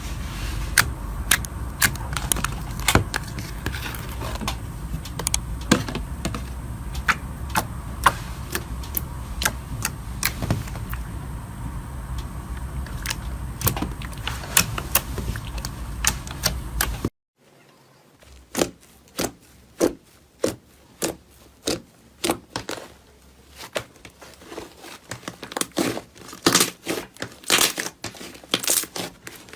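Slime being pressed, squeezed and stretched by hand, giving rapid sharp clicks and crackling pops. Just over halfway a cut leads to another clip with a quieter background and sparser, louder pops.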